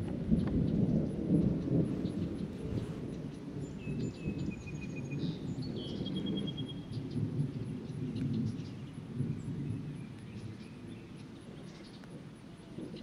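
Thunder rumbling after a lightning strike: a deep rumble, loudest at the start, rolling on and fading away over about ten seconds.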